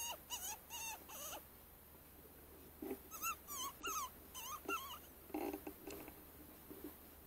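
Squeaking to call in a fox: two runs of short, high, wavering squeaks imitating a small animal in distress. Then a short, duller noise about five and a half seconds in.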